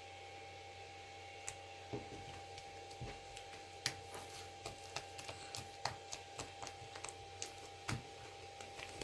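Homemade green slime being worked by hand into a balloon shape, making scattered small sticky clicks and pops that come thicker in the second half, over a faint steady hum.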